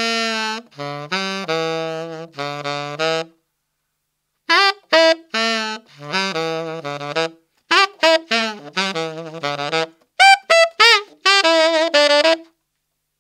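Unaccompanied tenor saxophone playing a short blues-scale lick in F# minor, down the octave, in three phrases of quick notes with brief silences between them.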